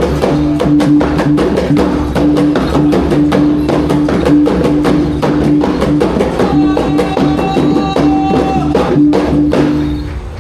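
Iban gendang pampat ensemble playing: a fast, steady drum rhythm over a repeated ringing gong note, stopping shortly before the end.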